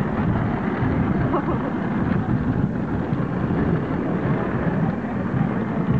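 Steady rumbling noise with the murmur of a crowd's voices.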